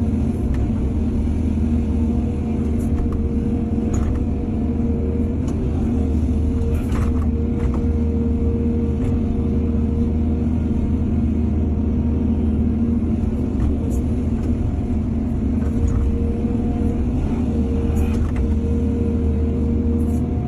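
Excavator's diesel engine running steadily under load, with a steady whine over the low drone and a few sharp clanks scattered through it.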